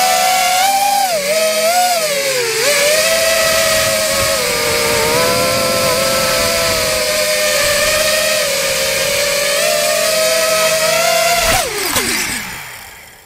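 Radio-controlled model airplane's motor and propeller running with a high-pitched buzz, wavering in pitch with throttle changes early on, then winding down sharply and fading out near the end as the plane comes down in the grass.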